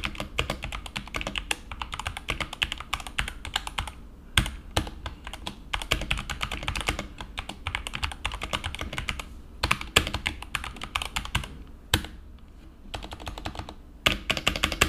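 Redragon FIZZ K617 transparent mechanical keyboard with its custom switches, typed on fast in a close-miked sound test: a dense clatter of keystrokes with a few louder single clacks. Brief lulls come about four and twelve seconds in.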